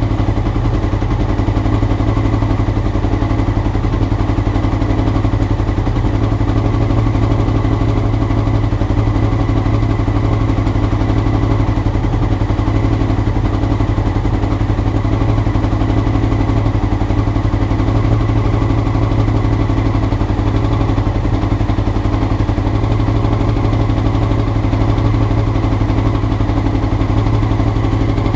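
Honda CBR motorcycle engine idling steadily, with no revving. This is the rough idle the owner is chasing in the carburettors' float needles.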